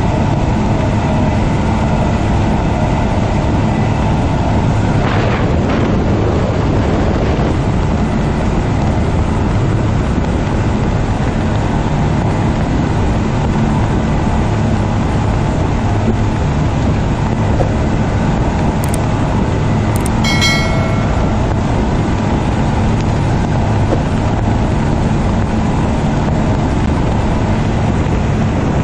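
Five Suzuki 250 HP V6 four-stroke outboards running steadily at planing speed, their engine drone mixed with the rush of the wake and wind. A brief high tone sounds about two-thirds of the way in.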